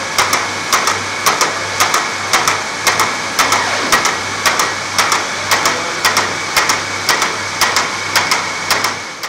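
Printing press running: a steady mechanical hum with a sharp clack repeating evenly about twice a second. The sound cuts off suddenly at the end.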